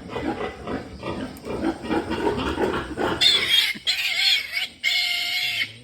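Pigs grunting, then newborn piglets squealing loudly in three high-pitched squeals about three seconds in.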